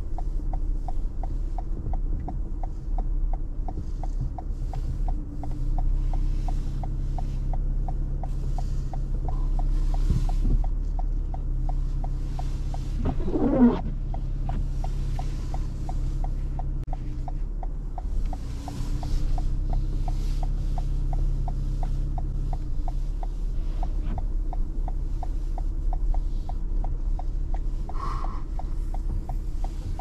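Cabin noise of a 2021 Toyota RAV4 Hybrid driving on a snow-covered road: a steady low drone with a faint, even ticking about twice a second. A short pitched sound stands out about halfway through.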